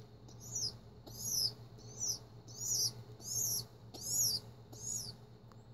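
Baby pigeon (squab) squeaking while feeding from a syringe: a steady run of short, high chirps, each rising then falling in pitch, about two a second.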